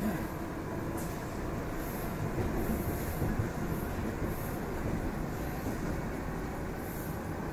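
EP2D electric multiple unit running along the line between stations, heard on board: a steady rumble of wheels on rail and running gear.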